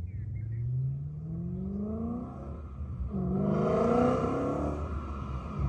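BMW E92 M3's V8, breathing through a Remus exhaust with an X-pipe and added resonators, accelerating hard toward the listener. The pitch climbs, drops at an upshift about three seconds in, then climbs again as it gets louder.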